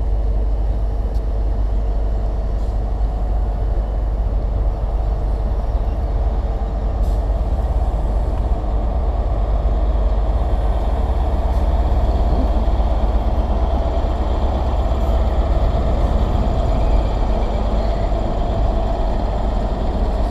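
Class 43 diesel power car of an HST (InterCity 125) running as the train moves past the platform: a steady deep engine rumble that grows louder and brighter over the second half.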